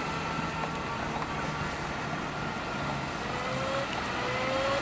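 Joysway X-Blaze RC speedboat's brushless electric motor whining at a distance as the boat runs across the water, its pitch rising slightly twice in the second half, over a steady hiss.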